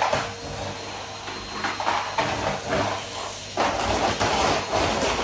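Henry canister vacuum cleaner running, its wand dragged over a sanded fibreglass pond floor and sucking up the dust. It grows louder and rougher about three and a half seconds in.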